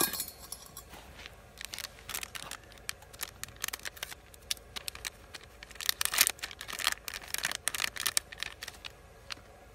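A paper packet being crinkled and torn open by hand, in a run of sharp rustles that come thickest about six to eight seconds in.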